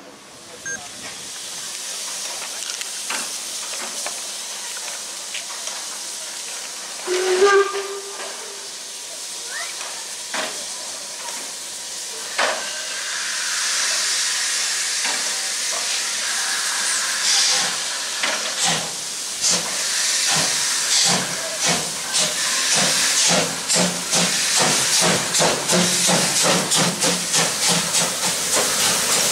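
Steam locomotive starting away: steam hissing steadily, a short blast on the steam whistle, then the exhaust beats begin slowly and grow steadily faster as the engine gathers speed.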